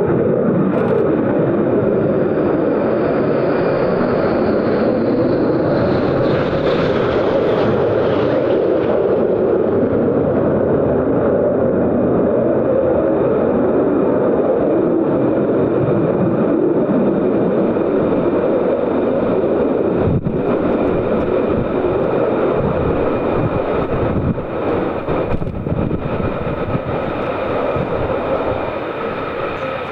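Military jet aircraft engine noise, loud and steady, with a high whine that rises and falls a few seconds in. It eases off slightly over the last few seconds.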